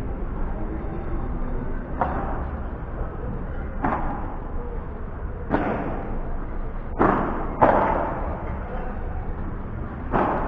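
A padel rally: the ball is struck back and forth, giving six sharp pops one to two seconds apart, two of them in quick succession past the middle.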